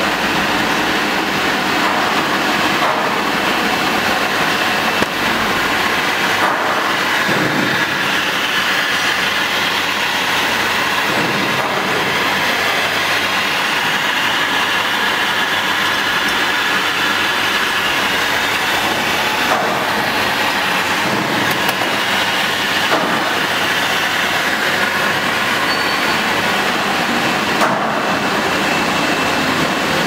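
Vacuum feeder (vacuum loader) of a packing machine running: the suction motor gives a loud, steady rushing whir.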